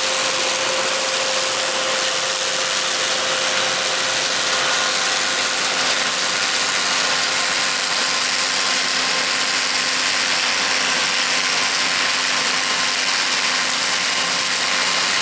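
Engine of harvest machinery running steadily: a constant hum with a dense hiss over it.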